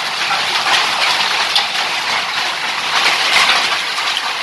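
Hail and heavy rain pelting roofs: a loud, dense, steady hiss of the downpour.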